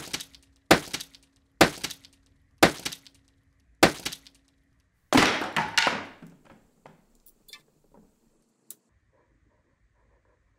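Small metal DC gear motors and parts being set down on a cutting mat: five sharp clinks about a second apart, then a longer rattling clatter about five seconds in, trailing off into a few light ticks.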